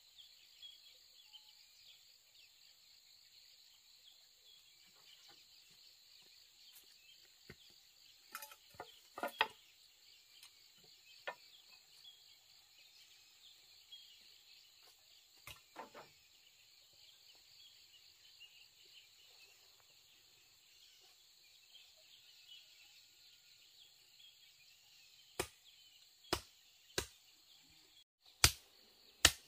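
Scattered sharp knocks, a few in the middle and a run of five louder single strikes near the end, over a steady background of insects trilling.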